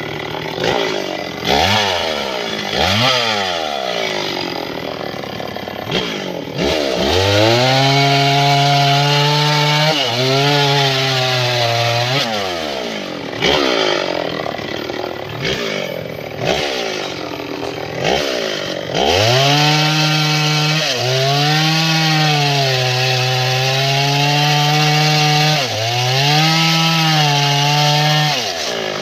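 Stihl 070 two-stroke chainsaw cutting through mahogany logs. Between cuts the engine is revved up and down in quick blips. In two long cuts it holds a steady, lower pitch as the chain bites into the wood under load.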